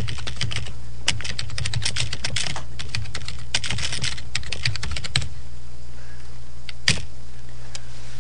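Typing on a computer keyboard: quick runs of keystrokes for about five seconds, then two separate clicks later on. A steady low hum runs underneath.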